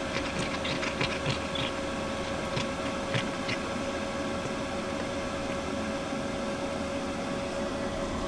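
A steady mechanical hum with one constant mid-pitched tone. Over it, during the first few seconds, are faint small clicks of a cat crunching treats.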